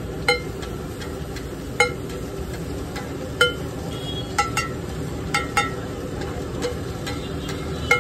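Metal spatula clanking and scraping on a large flat metal griddle while chopping and spreading an egg mixture. There are about nine irregular strikes, each ringing briefly, over a steady background noise.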